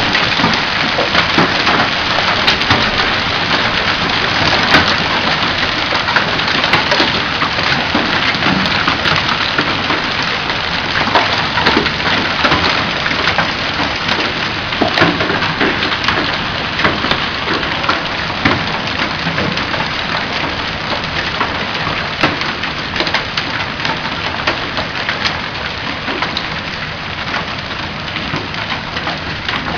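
Hailstorm: a dense clatter of hailstones striking hard surfaces over the hiss of heavy rain, easing a little near the end.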